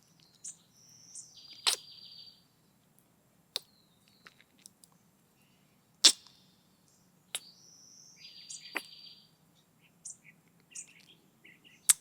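Close-mic kissing sounds: a few sharp lip smacks spaced seconds apart, the loudest about halfway through. Under them runs birdsong, in which one bird twice gives a short high whistle followed by a buzzy trill.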